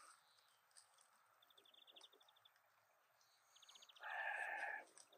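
A single bleat from a farm animal about four seconds in, lasting just under a second and the loudest sound here. Before it, a small bird gives two short, rapid, high trills.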